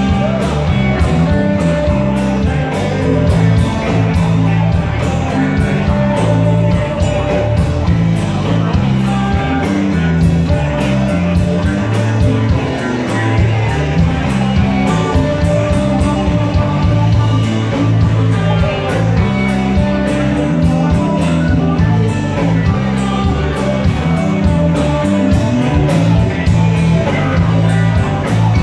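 Live rock band playing: electric guitars, bass guitar and drum kit, with keyboards and hand percussion, over a busy, shifting bass line and a steady beat.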